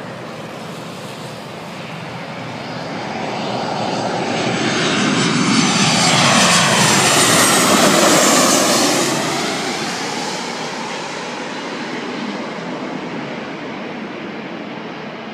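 Jet engines of a twin-engined Ryanair Boeing 737 airliner on final approach with gear down, passing low overhead. The sound swells to its loudest about six to nine seconds in, falls in pitch as the plane goes by, then eases off as it heads for the runway.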